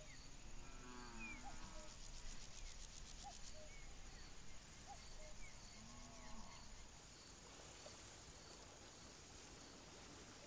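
Faint dusk marsh ambience: scattered short bird calls over a high insect-like note repeating a little more than once a second, with a high buzzing chirr early on and two low drawn-out animal calls, about a second in and again around six seconds.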